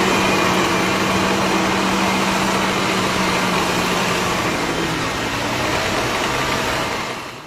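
An engine running steadily, with a low hum over broad machine noise; it fades out at the very end.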